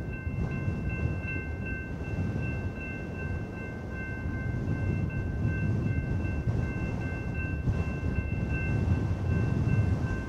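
Low rumble of an approaching freight train with a railroad crossing warning bell ringing in a steady, evenly repeating high tone.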